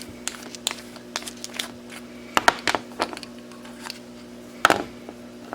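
Battery cap of an aluminium-alloy LED flashlight being unscrewed and handled: a run of small clicks and scrapes, with the loudest knocks about two and a half seconds in and again near the end.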